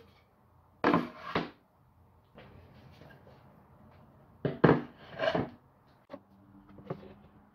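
Wooden panels being set down and slid into place on a tabletop: a short clatter of knocks and scraping about a second in, then another board laid down with a few knocks and a slide just past the middle.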